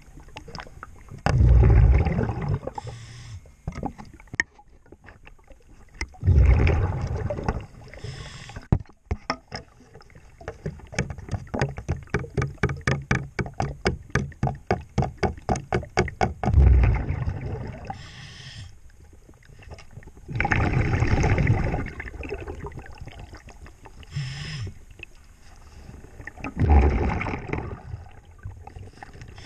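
Scuba regulator breathing underwater: five loud, low bursts of exhaled bubbles, one every few seconds, with fainter hissing inhalations between them. Midway, a run of rapid, even clicks, about three a second, from a hand tool working against the boat's hull.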